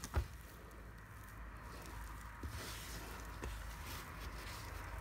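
Dough being kneaded by hand in a stainless steel bowl: soft squishing and pressing of the sticky flour-and-egg dough. A sharp knock comes just after the start, and a few lighter taps follow.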